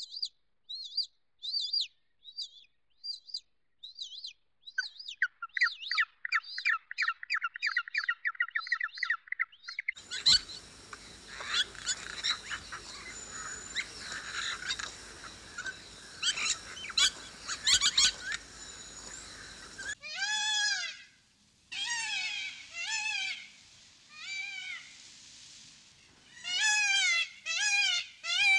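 Bird calls in three short cuts. First, sparse high chirps, joined about five seconds in by a rapid trill. Then, about ten seconds in, a busy chorus of many birds calling over one another. In the last third, a series of repeated, arched, pitched calls.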